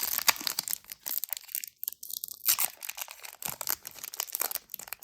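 Trading cards and their packaging handled close to the microphone: a run of crinkling and rustling crackles, briefly thinner about two seconds in.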